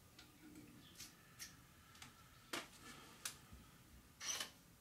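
Faint, scattered clicks of small metal parts and tools being handled on a workbench, with a short scrape near the end.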